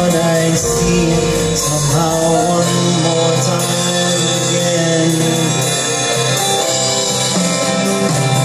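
Live band music: a man singing long held notes over acoustic guitar and bass.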